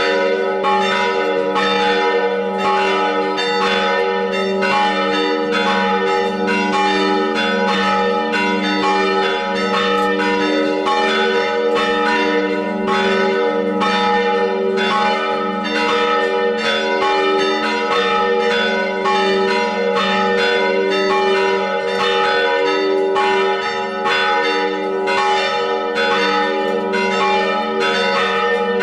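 Church bells ringing in a steady peal. Strokes come about twice a second over an unbroken blend of several overlapping bell tones.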